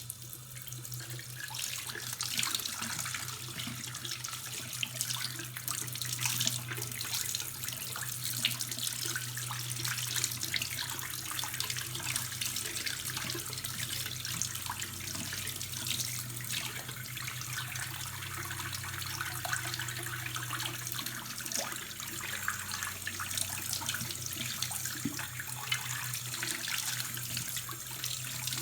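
Bathroom vanity faucet running steadily into the sink, the water splashing as small clogged faucet strainer screens are rinsed clean in the stream.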